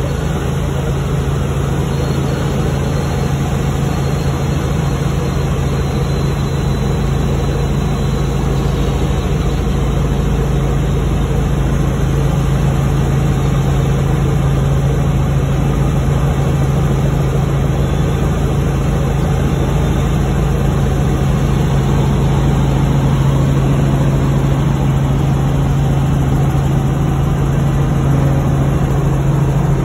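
Helicopter engine and rotor noise heard from inside the cabin in flight: a loud, steady low drone.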